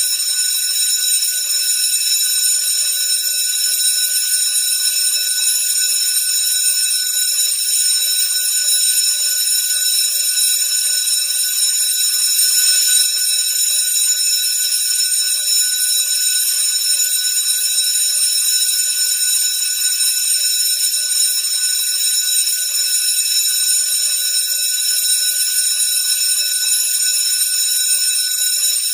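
School bell ringing continuously: one steady, high-pitched ring that never breaks.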